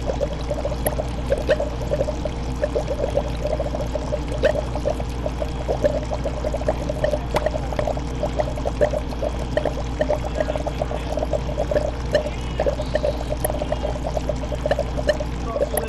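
Aquarium water bubbling and trickling continuously, with a steady low hum underneath.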